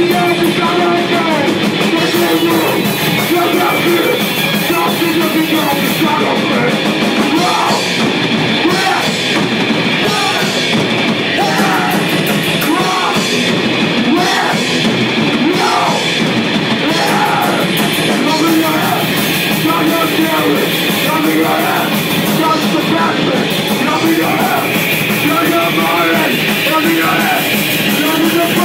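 Hardcore metal band playing live: distorted guitars, bass and a drum kit, with shouted vocals.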